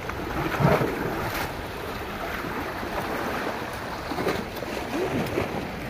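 Steady wash of sea waves with wind buffeting the microphone.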